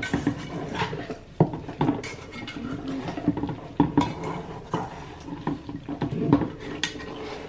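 Raw seasoned chicken drumsticks being tossed and rubbed by hand in a nonstick pot: wet handling of the meat with irregular knocks and clatters of the drumsticks against the pot.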